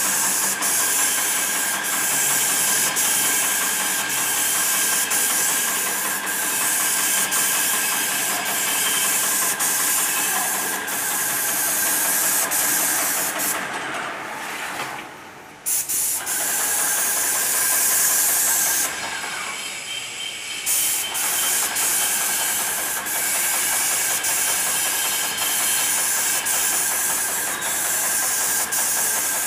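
Paint spray gun hissing steadily as a wall is sprayed, with the sprayer's motor whining underneath and a faint tick about once a second. The hiss stops for about two seconds midway, when the trigger is released, then resumes.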